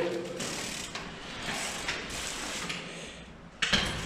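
Bicycle freewheel hub clicking as a bike rolls, a fast steady ratcheting, with a sudden louder clatter near the end.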